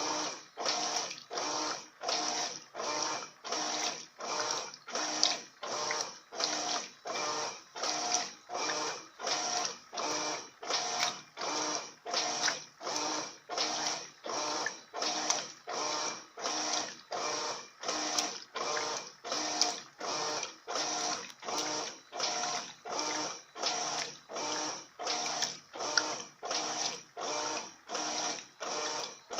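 Electrolux LF80 top-loading washing machine agitating a load at high water level: the agitator swings back and forth in a steady, even rhythm, about three strokes every two seconds, each stroke a churning whir.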